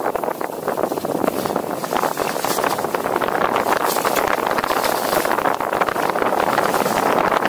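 Skis sliding and scraping over firm groomed snow at speed, a steady coarse noise mixed with wind buffeting the microphone.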